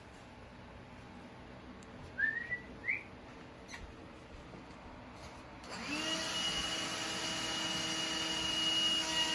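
Two short rising squeaks a second apart, then, about six seconds in, a vacuum cleaner switched on: its motor spins up and settles into a steady hum with a high whine over a rushing hiss.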